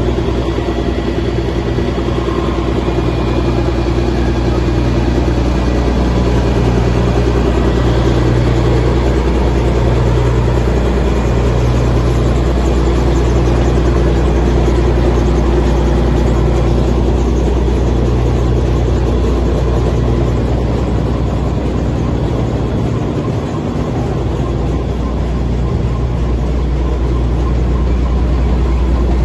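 2003 Terex Pegson Metrotrak mobile jaw crusher running, its diesel power unit going steadily, with a deep low hum that swells and fades unevenly every second or two.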